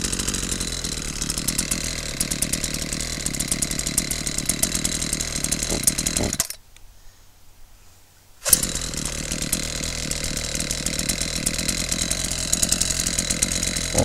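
Two-stroke chainsaw with a freshly sharpened chain running and cutting into a log. The sound cuts off suddenly about six seconds in, there are about two seconds of near silence, then it runs again for about six more seconds.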